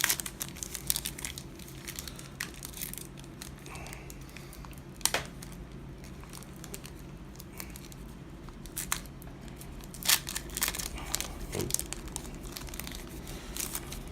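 Foil trading-card booster pack crinkling and tearing as it is opened and handled, with irregular sharp crackles, the loudest about five and ten seconds in.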